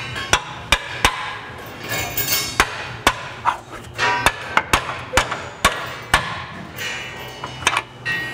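Hammer blows on metal, about a dozen sharp, irregularly spaced strikes, as a lower control arm is tapped into position to line up its bolt hole.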